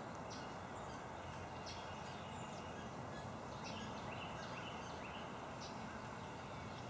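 Small birds giving short, high chips and calls, one or two a second, over a steady background hiss.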